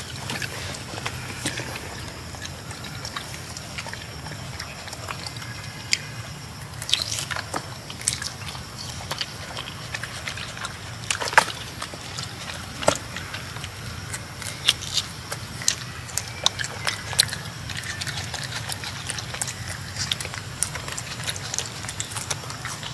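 Macaque chewing juicy fruit right at the microphone: irregular wet smacks and sharp mouth clicks over a steady low hum.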